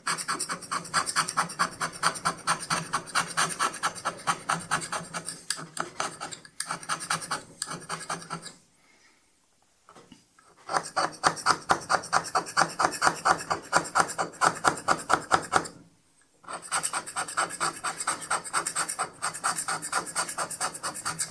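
Metal scraper taking heavy roughing cuts on the dovetail of a Schaublin 102 lathe compound slide, cutting real chips rather than dust. A fast run of rasping scraping strokes, broken by two short pauses.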